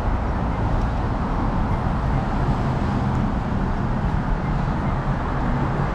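Steady street traffic noise, a continuous rumble of passing cars.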